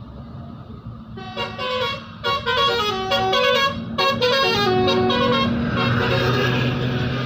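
Indonesian 'telolet' multi-tone bus horn (Basuri) playing a quick stepping melody of toots over the bus's idling engine, followed near the end by a hiss.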